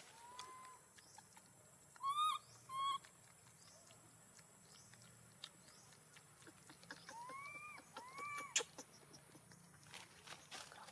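Baby monkey giving short, high squeaky calls, each rising and falling in pitch: a faint one at the start, two louder ones about two seconds in, and a pair near eight seconds. Light clicks and taps sound between them, with one sharp click just after the last call.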